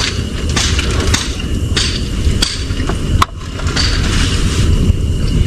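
Tableware clicking and knocking during a meal: about five sharp clicks, the loudest a little over three seconds in, over a steady low rumble.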